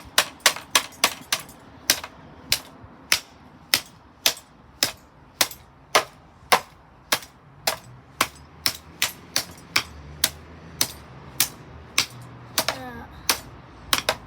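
A steady run of sharp, hard blows, about two a second and quicker at first, as the metal bar of a Blaupunkt fan heater is struck repeatedly to break it.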